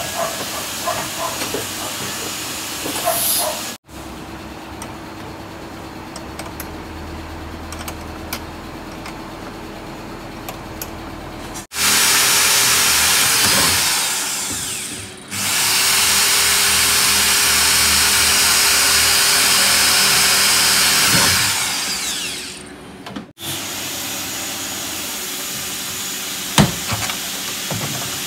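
A handheld power tool runs in two long stretches in the middle, a steady hum under a loud hiss. Quieter stretches with small clicks and knocks of tool work come before and after.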